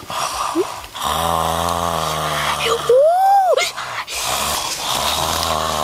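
A boy making long, low, droning throat sounds, with a short rising-and-falling vocal whoop about three seconds in.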